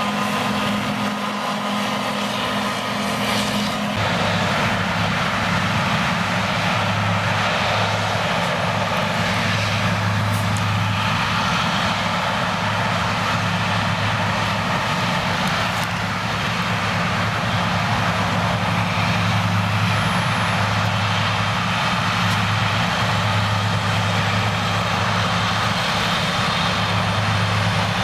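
A steady engine-like hum over broad running noise. Its tone shifts lower about four seconds in and then holds.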